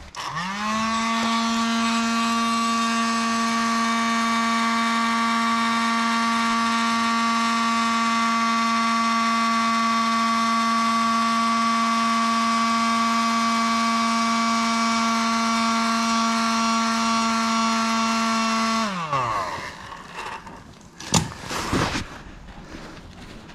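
Electric hot-air blower spinning up, running with a steady whine for about nineteen seconds, then winding down, used to warm a hydraulic quick-connect coupler stiffened by the cold. A short sharp knock follows about two seconds after it stops.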